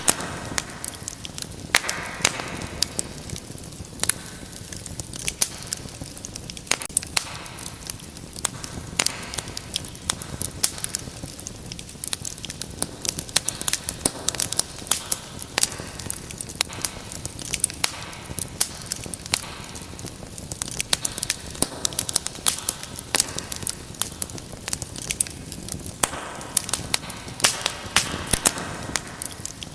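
Wood fire in a fireplace crackling steadily over a low hiss, with frequent sharp pops and snaps.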